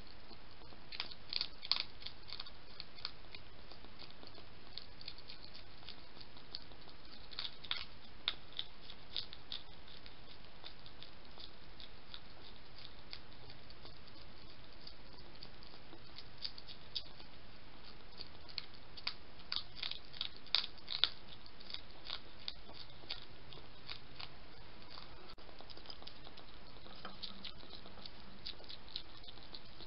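A wild European hedgehog eating from a dish. Its chewing makes quick, sharp clicks in irregular clusters, heard over a steady hiss.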